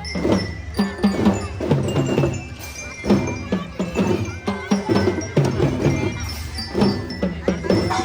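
A kindergarten drum band playing: a bell lyra (belira) rings out a bright melody of struck notes over regular drum beats.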